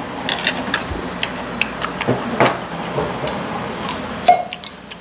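Scattered clicks and clinks of chopsticks and dishes on a restaurant table. About four seconds in comes the loudest sound, a sharp pop with a brief ring, as a glass beer bottle is opened.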